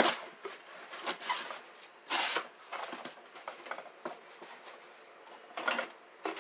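Handling noise: scattered clicks, light knocks and rustling as items are picked up and moved about. There is a sharp click at the very start, and short louder rustles about two seconds in and near the end.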